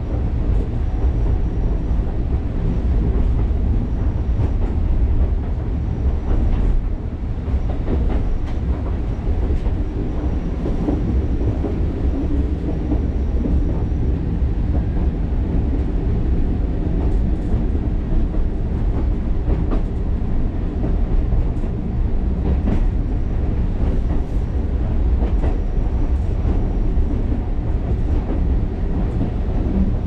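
Alishan Forest Railway narrow-gauge train running steadily along the track, a continuous low rumble with scattered clicks and knocks from the wheels on the rails.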